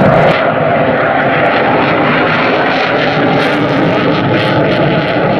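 McDonnell Douglas EF-18A Hornet's twin General Electric F404 turbofans, a loud steady jet noise from the fighter flying its display overhead.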